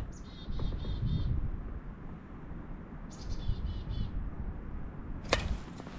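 A small bird calling twice, each time a quick run of about half a dozen repeated high notes, over a low rumble of wind or handling noise. A sharp knock comes near the end.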